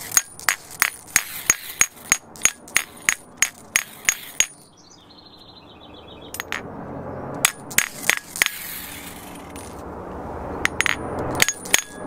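Hammer blows driving the stainless steel expansion pin into a Petzl Long Life nail-in bolt, each strike a sharp metallic clink with a brief ring. There is a quick run of about three blows a second for the first four seconds, then a pause, then a few scattered blows, setting the pin toward flush to expand the bolt in the rock.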